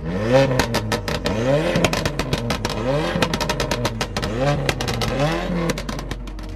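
The Alfa Romeo 4C's 1.75 TBI four-cylinder engine in an Abarth 595 being revved in repeated short blips, each rising and falling in pitch, with sharp crackles between them. It settles lower near the end.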